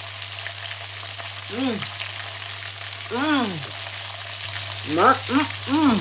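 Chicken thighs sizzling in a cast-iron pot, a steady hiss with fine crackle. Over it come short rising-and-falling "mmm" hums of someone tasting the meat, once about two seconds in, once at about three seconds, and three in quick succession near the end.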